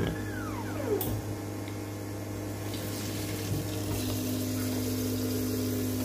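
Small 12 V DC water pump motor running with a steady hum, a second steady tone joining about four seconds in; the pump is spinning but no water is reaching the washer.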